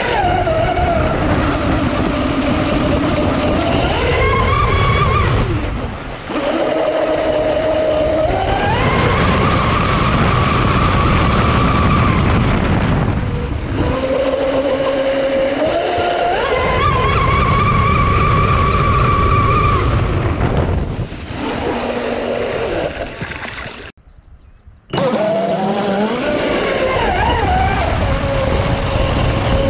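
Traxxas M41 RC boat's brushless electric motor whining over the rush of water along the hull. The whine rises in pitch, holds and falls several times as the throttle is opened and eased off, and the sound drops away for about a second before coming back near the end.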